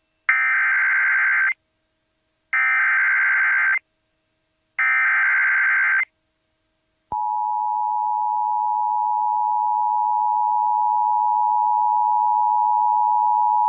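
Emergency Alert System header: three identical bursts of digital data screech, each a little over a second long, followed about seven seconds in by the steady, piercing EAS attention-signal tone. Together they mark the start of a new alert.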